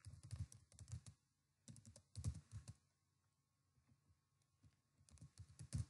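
Faint typing on a computer keyboard: short runs of key clicks in the first second and around two seconds in, a pause of about two seconds, then another run near the end.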